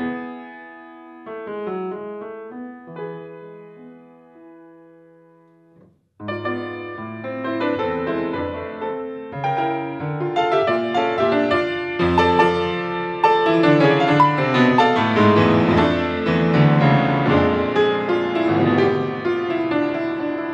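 Solo grand piano playing classical music. A few sparse notes die away over the first six seconds into a brief near-silence, then a dense, fast passage enters and grows louder toward the end.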